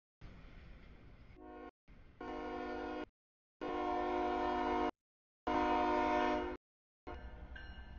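CSX freight locomotive's air horn sounding a series of blasts for the grade crossing as the train approaches, the last two blasts the longest and loudest, over a low rumble. The sound drops out completely between blasts.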